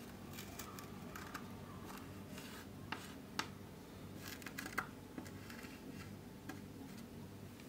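Thin plastic tool slicing and scraping through kinetic sand: soft, faint crunching, with a few short sharp ticks around three seconds in and again near five seconds.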